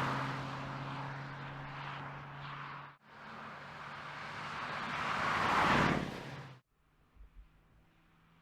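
2017 Porsche Panamera Turbo's twin-turbo V8 and tyres as the car drives past, a steady engine hum under rushing road noise. One pass fades away and breaks off about three seconds in. A second builds to its loudest just before six seconds, then stops abruptly and leaves only a faint hum.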